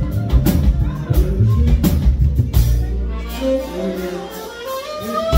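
Live band playing with a drum kit, heavy bass and keyboard. About three seconds in the drums and bass drop out for a brief quieter break, where a run of held notes steps upward.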